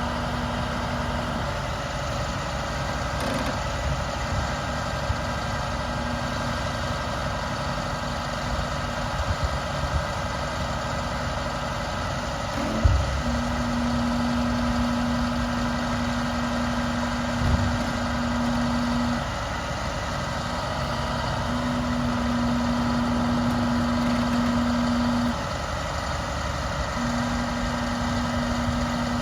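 The MaxxForce DT turbo diesel of an International 7400 truck running steadily. A steady tone comes and goes in stretches of a few seconds, and there are a few short knocks.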